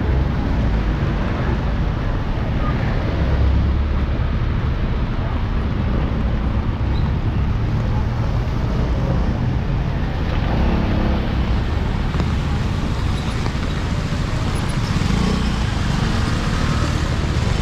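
Steady street traffic: vehicle engines running and passing close by, with a low rumble throughout. A higher hiss grows stronger about ten seconds in.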